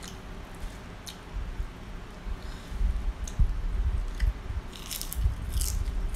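Close-up chewing and crunching of crisp deep-fried grasshoppers, with sharp crackles as they are bitten, the crunching heaviest near the end.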